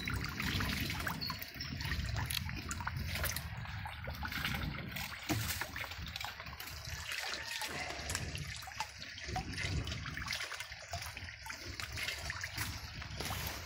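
Water trickling steadily, with scattered small splashes and clicks.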